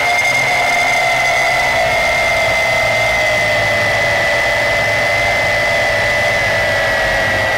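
Yizhan Tarantula X6 quadcopter's motors and propellers whining steadily in flight, heard loud and close from the camera mounted on the drone. The pitch sinks a little over the seconds.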